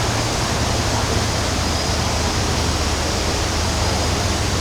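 Steady rushing of water, even and unbroken, with no distinct drops or splashes standing out.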